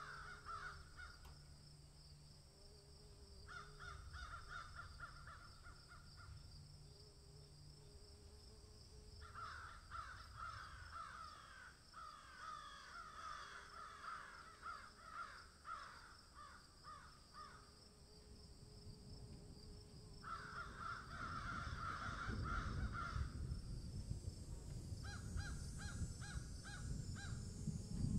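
Birds calling in runs of rapid repeated notes, each run one to three seconds long with pauses between, over a steady high insect drone. A low rumble comes in during the second half.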